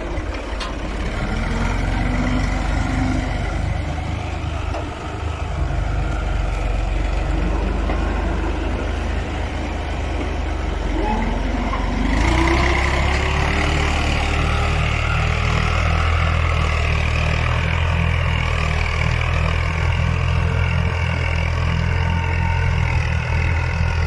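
Al-Ghazi tractor's diesel engine running steadily under load, pulling a five-tine cultivator through dry soil. The engine sound steps up louder about halfway through.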